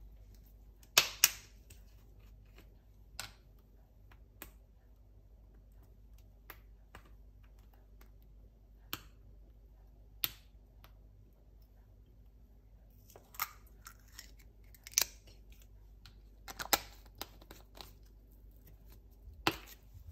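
Scattered sharp plastic clicks and small handling noises as the cap of a plastic squeeze bottle of honey is taken off and the bottle is handled, with pauses between. A cluster of clicks comes in the last few seconds, the loudest near the end.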